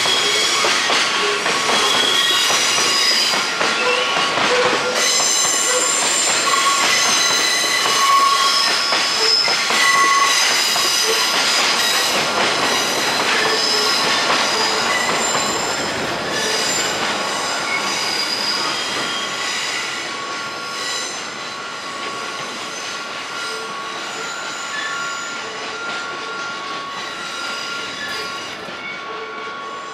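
Freight train wheels squealing against the rails, a shifting mix of high squealing tones with scattered clicks of wheels passing over rail joints. The squeal grows fainter through the second half.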